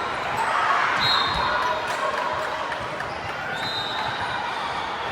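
Echoing gymnasium din of volleyball play: balls thumping on hands and the hardwood floor, distant voices, and a few short high squeaks.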